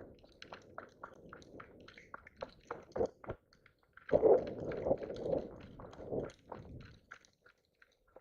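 Scattered small clicks and crunching, with a louder stretch of rustling and shuffling from about four seconds in to about seven.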